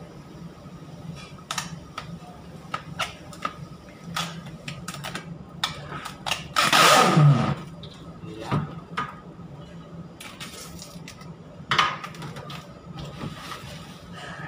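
Plastic cling wrap crinkling and rustling as it is stretched and pressed around the rim of a stainless steel bowl, over a steady low hum. About seven seconds in there is one loud squeal that falls in pitch, and a fainter one follows a second later.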